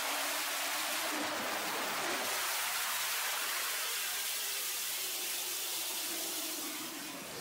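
Airflow rushing over the camera's microphone during wingsuit flight, a steady dense hiss that eases slightly near the end.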